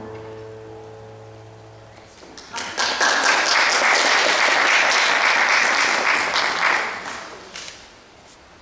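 The last chord of a stage-piano accompaniment is held for about two seconds at the end of a child's song. Then an audience applauds for about five seconds, and the clapping dies away near the end.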